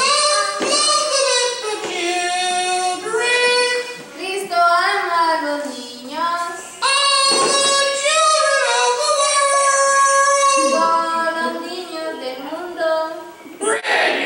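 A single high-pitched voice singing a song, holding some notes for a second or two.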